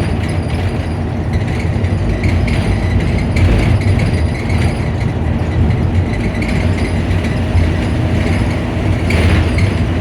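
Optare Solo bus's diesel engine idling with its engine cooling fan running: a steady low engine hum under a constant rushing whir.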